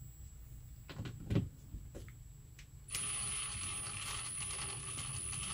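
Cordless drill motor running steadily for about three seconds as it drives a screw into a plywood (OSB) floor, starting suddenly about three seconds in. Before it, a couple of faint knocks.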